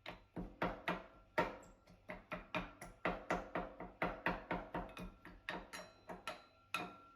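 Strawberries and mint leaves being pounded in a drinking glass with the end of a kitchen utensil used as a muddler. The knocks repeat steadily, about three or four a second, and the glass rings faintly after the strikes.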